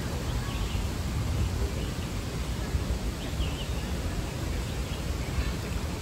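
Steady outdoor ambient noise with a low rumble, and a few faint, brief bird chirps.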